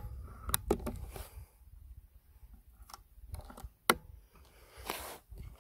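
Sharp clicks and snaps from a Diana 4.5 mm air rifle being handled and fired, with two short loud reports, one right at the start and one near four seconds in, and faint handling noise between.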